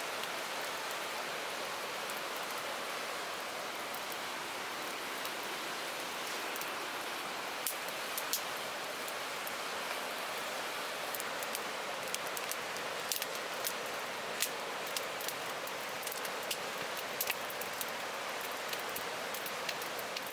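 Split firewood burning in a steel fire pit, crackling with sharp pops that begin about seven seconds in and come more often after that, over a steady hiss.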